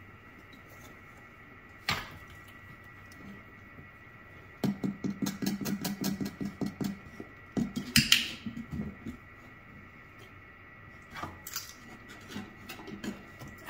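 A puppy's paws and claws tapping and scuffling on bare wooden stair treads: a quick run of taps about five seconds in and a knock with a scrape about eight seconds in, with a few lone taps elsewhere. A faint steady high whine sits underneath.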